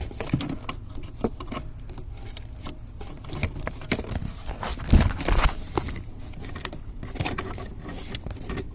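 Irregular rustling, light clicks and scrapes of hands moving through loose car wiring under a dashboard, with a louder knock about five seconds in.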